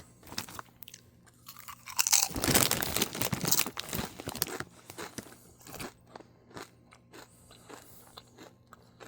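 Doritos tortilla chips being bitten and chewed close to the microphone. A dense burst of loud crunching comes about two to four and a half seconds in, then quieter, scattered chewing crunches.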